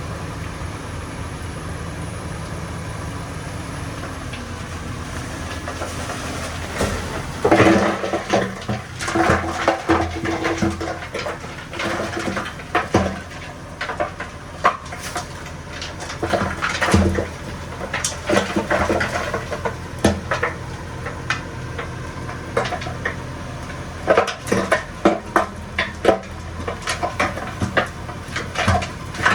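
Bulldozer's diesel engine running steadily, then from about seven seconds in, many irregular metallic clanks and knocks as the machine works dirt.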